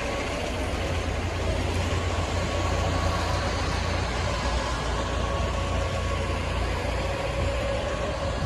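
Busy town high-street ambience: a steady low rumble of road traffic and buses, with a faint steady hum running through it.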